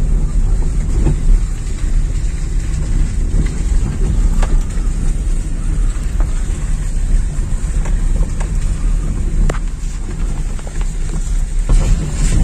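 Steady low rumble of wind on the microphone and road noise from a moving vehicle.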